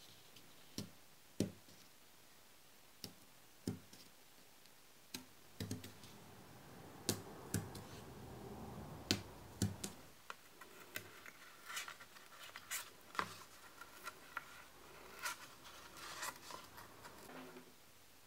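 Foam-core board being handled and pierced with a wooden skewer: scattered sharp taps and scratches, a stretch of scraping about six to ten seconds in, then a run of clicks and squeaky crunches.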